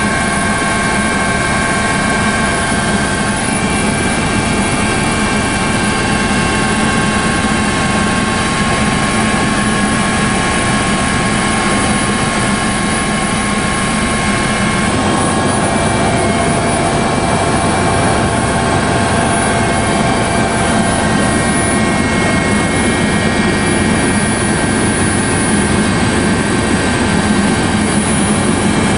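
Helicopter turbine engine and rotor noise heard from aboard the helicopter: a steady, loud drone with several high, steady whining tones over it.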